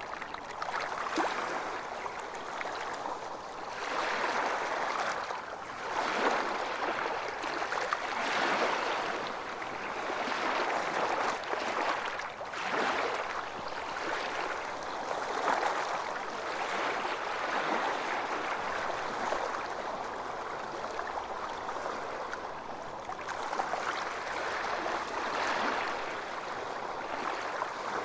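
Calm small waves lapping and washing, swelling and fading every couple of seconds.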